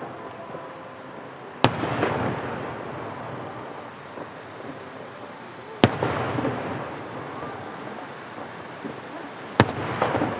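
Aerial firework shells bursting: three sharp booms about four seconds apart, each followed by a long trailing rumble and crackle that fades slowly.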